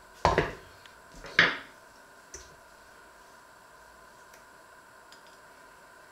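A stainless steel colander full of plums set down on a wooden worktop with a clatter, followed about a second later by a second, sharper clatter and a small click; after that only a faint steady hum.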